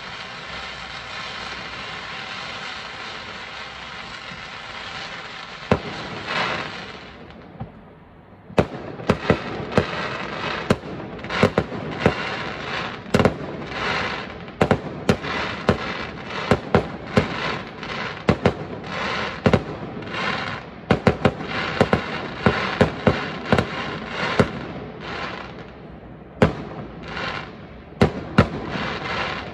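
Fireworks display: for about the first seven seconds a steady hiss of fountains spraying sparks, with one sharp bang, then a rapid string of sharp bangs and crackles from bursting aerial shells, several a second.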